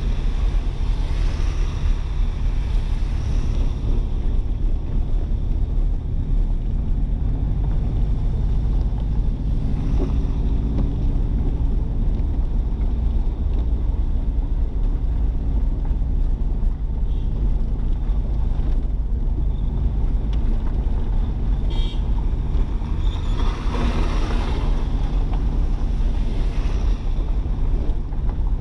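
Steady low rumble of a car driving on a wet, muddy road, heard from inside the car: engine and tyre noise. About three-quarters of the way through, a brief louder rush swells and fades.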